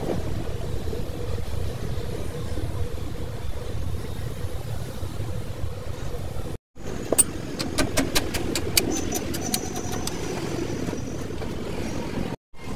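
A steady low rumble. After a short break about halfway through, a quick run of sharp clicks and taps from hand tools on the truck's axle hub comes over it.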